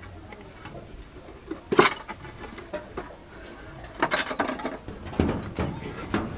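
A few irregular knocks and clatter from fitting a metal heat-barrier sheet by a stove chimney: one sharp knock about two seconds in, then a cluster of knocks around four seconds in and another shortly after.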